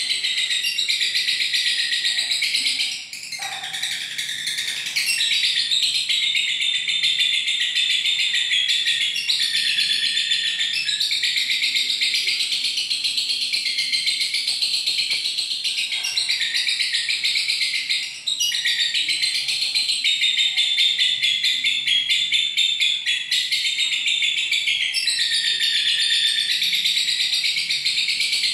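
A lovebird's long 'ngekek' chatter: a rapid, high-pitched trill kept up almost without a break, pausing briefly about three seconds in and again around eighteen seconds.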